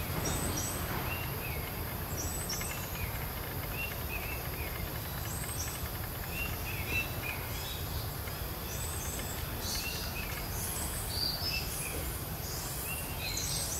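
Birds chirping outdoors, short high calls repeating every second or two and coming more often in the last few seconds, over a steady low background rumble.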